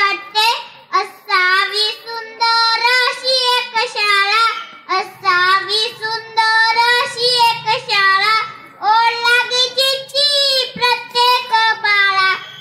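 A young child singing solo into a stage microphone, a high voice in long held, sliding notes with short breaks between lines.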